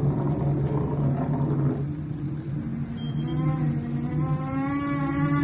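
Steady low rumble and hum of a bulk carrier's engine and hull in heavy seas. From about three seconds in, a drawn-out, slightly wavering whine rises over the rumble.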